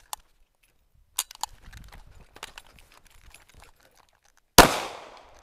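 An empty-chambered rifle dry-fires with a sharp click about a second in, followed by running footsteps and gear rattle as the shooter sprints and draws his pistol. Near the end a single pistol shot, the loudest sound, rings out with a short echo.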